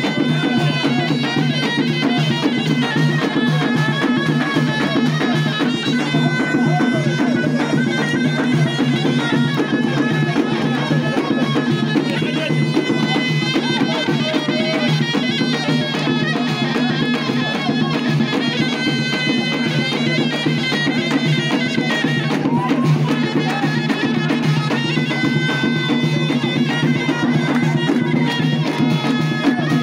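Traditional folk music from a reed wind instrument playing a melody over a steady drone, with a drum beating.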